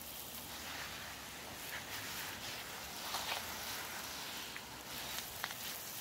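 Water from a garden hose spraying onto the soil and vegetable beds, a steady hiss and patter.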